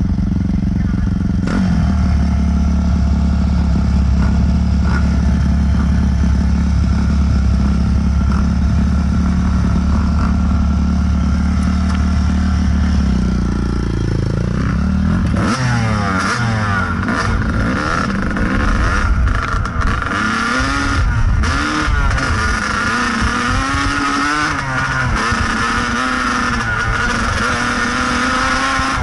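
Kawasaki KDX220 two-stroke single-cylinder dirt bike idling steadily. About halfway through it pulls away and rides along a dirt trail, its engine revving up and down, with clatter and wind noise.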